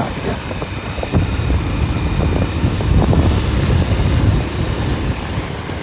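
Motorcycle engine running under way, heard as a steady low rumble mixed with wind and road noise on the microphone.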